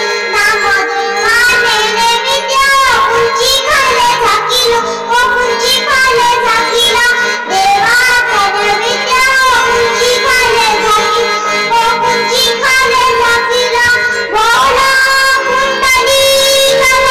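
A child's voice singing a devotional song over instrumental accompaniment, with a steady drone underneath.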